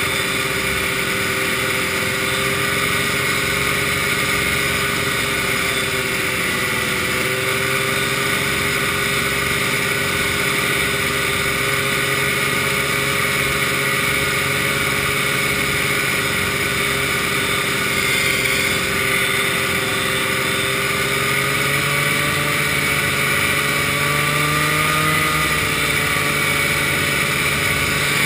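Vintage snowmobile's two-stroke engine running steadily at cruising speed, heard from the rider's seat, its pitch dipping slightly a few seconds in and rising briefly near the end.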